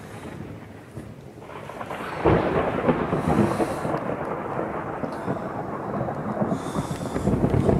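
Thunderstorm: thunder swells about a second and a half in, cracks loudly just after two seconds and keeps rolling and rumbling after.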